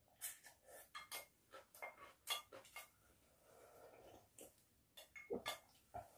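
A spoon clinking and scraping against a glass food container in a series of light taps, then a soft sipping as the container is tipped up to drink the last of its contents, with a few more clinks near the end.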